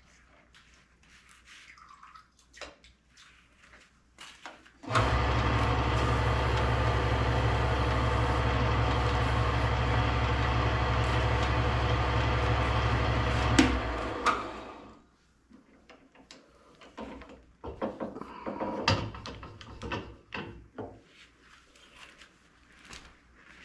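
An electric machine motor runs steadily for about nine seconds, with a strong low hum under a broad rushing noise, then is switched off and winds down over about a second. Light knocks and handling clicks come before and after it.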